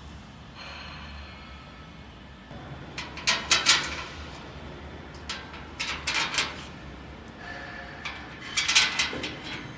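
Metal machine frame and cover parts clattering and knocking in three short bursts while being fitted under a laminating machine's feeding platform, over a low steady hum.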